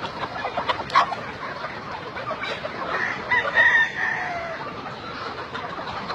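Chickens clucking, with a rooster crowing once about halfway through, the loudest sound here.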